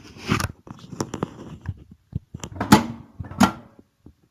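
Presser foot of an industrial sewing machine being lifted and let drop again and again: a string of sharp metal clacks and knocks, the two loudest a little past halfway.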